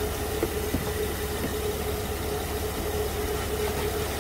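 A 2008 Honda Odyssey's J35 3.5-litre V6 idling steadily at operating temperature, a low even hum.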